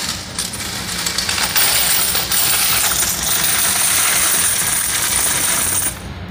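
Coins pouring in a steady stream from a vending machine's metal coin box into a cardboard box, a continuous jingling clatter. It grows louder about a second and a half in and stops suddenly just before the end.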